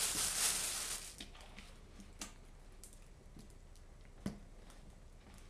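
Plastic roasting sleeve crinkling and rustling as halved potatoes are put into it, loudest for about the first second. A few soft clicks and taps follow as more potatoes go in.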